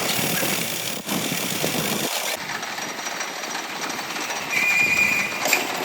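Metalworking machinery running with a dense, rattling noise; a steady high whine joins about three-quarters of the way through, and the sound changes abruptly twice.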